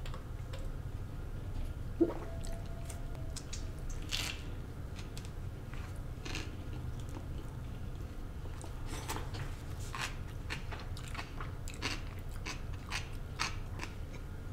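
Close-miked eating sounds: chewing with scattered crisp crunches of deep-fried, battered food. A single sharp knock, the loudest sound, comes about two seconds in.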